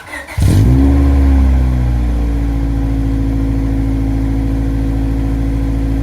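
Car engine starting: a short burst of cranking, then it catches about half a second in and runs at a fast idle that settles into a steady idle.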